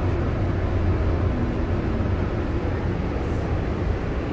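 Steady low rumble heard inside a CTrain light rail car.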